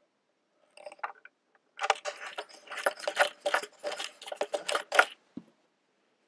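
Small metal nut and washers clicking and jingling against a steel bolt's threads as the nut is spun on by hand: a few light clicks, then about three seconds of quick clinking.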